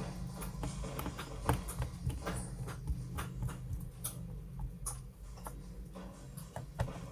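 Irregular light clicks and taps, a few a second, over a low steady hum.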